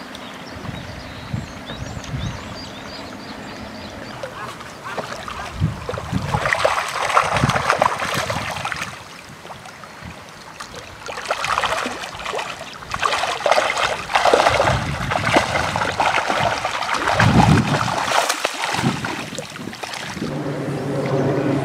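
Herabuna (Japanese crucian carp) splashing and thrashing in shallow, reedy water during their spawning run, in repeated bursts of splashing with quieter gaps between.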